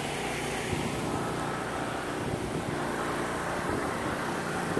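Steady engine hum: the pressure-washing equipment's engine running.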